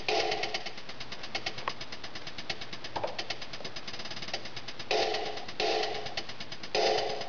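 Beat707 Arduino drum sequencer playing an electronic pattern: fast, even ticks with short repeated synth notes that drop out for a few seconds and come back about five seconds in.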